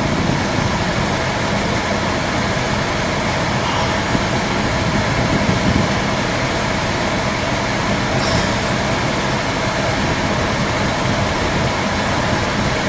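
Van driving slowly through a flooded street, heard from inside the cab: a steady rush of water and tyre noise over the running engine.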